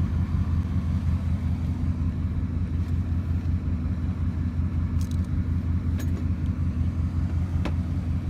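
Steady low engine and road rumble of a car driving, heard from inside the vehicle, with a few faint clicks near the end.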